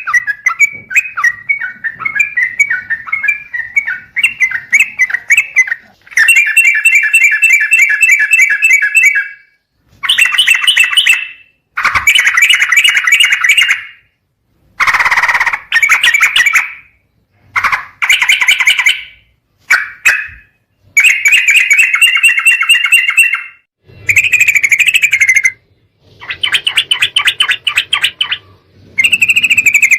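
Yellow-vented bulbul (trucukan) calling in repeated bursts of rapid, bubbly chattering notes, each burst one to three seconds long with short gaps between. It is a lure recording of the species' call, played to set other trucukan singing.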